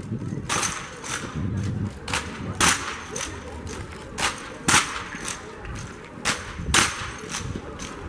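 Sharp cracks and slaps from an armed drill squad's rifle and marching movements, hands striking the drill rifles and boots striking the pavement in unison. They come mostly in pairs about half a second apart, roughly every two seconds.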